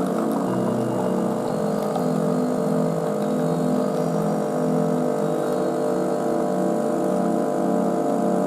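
Background music: a steady droning chord over a repeating low pattern of short notes shifting in pitch.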